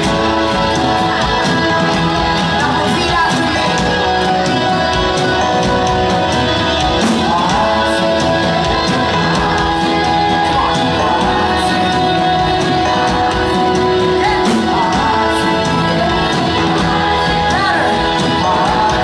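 Live pop-rock band playing loudly on drums, electric guitars and bass, with a male lead singer singing into a microphone.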